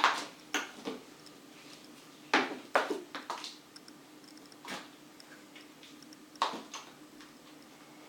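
A pet scratching and clattering at something, in a handful of short irregular bursts, loudest at the start and again about two and a half seconds in.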